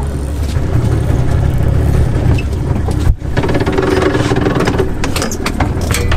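Boat's outboard motor idling steadily.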